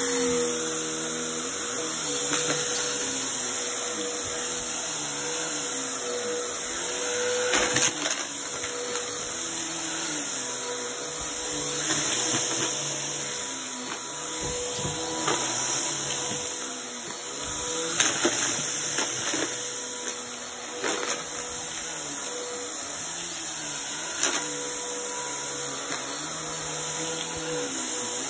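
Upright bagless vacuum cleaner running on carpet: a steady motor whine with a lower hum that wavers in pitch as it is pushed back and forth. Now and then there are sharp clicks and rattles as scattered rice and small bits are picked up.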